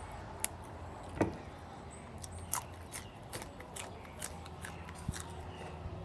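A person biting and chewing a crisp raw yard-long bean: a series of irregular sharp crunches.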